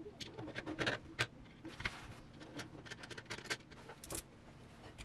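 3D-printed plastic parts of a koi fish automaton clicking and knocking together as they are fitted by hand: the top cover seated onto the geared base, then the crank handle pushed into place. Irregular small clicks throughout, the loudest a couple of sharp knocks about a second in.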